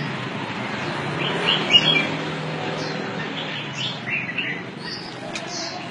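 Small birds chirping: scattered short, high chirps over a steady low background hum, loudest a little under two seconds in.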